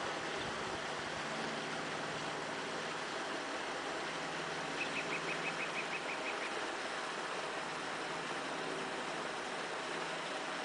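Steady outdoor ambient hiss over a calm lake at dusk, with a quick run of about ten high ticks near the middle.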